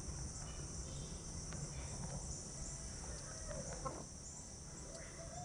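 Crickets chirring steadily, with two faint short bird calls, one about three and a half seconds in and one about five seconds in.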